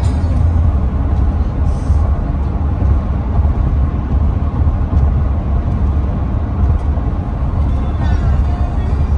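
Steady low road and tyre rumble heard from inside a car cruising at highway speed.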